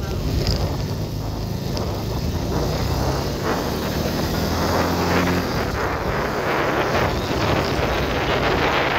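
Motorcycle running under way, its engine note steady, with wind rushing over the microphone. About halfway through, the engine's steady note fades and the wind rush takes over.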